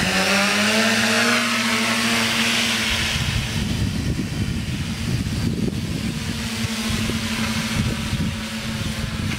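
Electric motors and propellers of a homemade foam-board multirotor drone plane spinning up as it lifts off, then flying with a steady whirring hum whose pitch rises a little in the first second or two. From about three seconds in, low wind rumble on the microphone runs under the hum.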